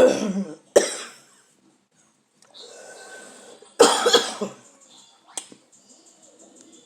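A woman coughing, with short coughs at the start and just under a second in and a harder cough about four seconds in, set off by the heat of extra-spicy fire noodles.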